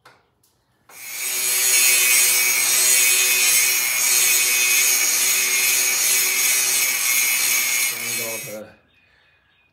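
Angle grinder grinding down a weld on the steel tube front end: it spins up about a second in, grinds steadily with a high whine for about seven seconds, then stops near the end.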